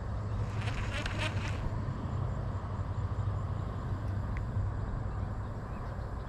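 Baitcasting reel being cranked close to the microphone: a steady low whirr from the retrieve, with a short run of light clicks about a second in.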